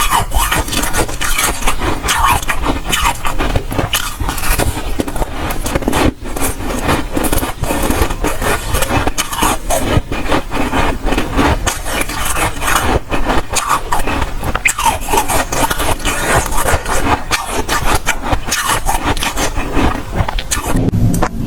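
Close-miked crunching and chewing of dry, powdery freezer frost: a dense, unbroken run of small crackles and scrapes.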